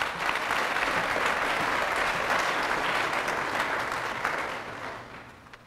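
Audience applauding, steady for about four seconds and then dying away near the end.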